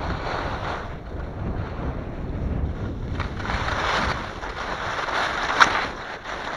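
Skis scraping and carving over crisp, crunchy snow, with wind buffeting the microphone; the hiss swells and fades several times, and there is a single sharp click near the end.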